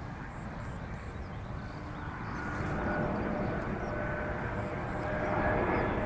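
Embraer E190 airliner's twin turbofan engines on final approach, a rumble with a faint steady whine that grows louder as the jet comes closer.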